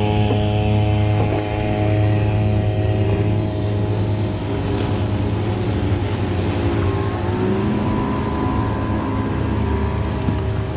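Outboard engines of bass boats running at speed as they pass, a steady low drone with the pitch shifting slightly partway through.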